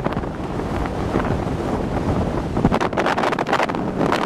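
Hurricane wind buffeting the microphone in irregular gusts, over the rush of heavy storm surf breaking on the beach.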